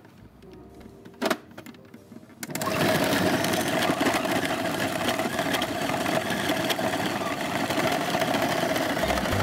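Electric meat mincer switched on about two and a half seconds in, its motor then running steadily with a held whine as it minces meat.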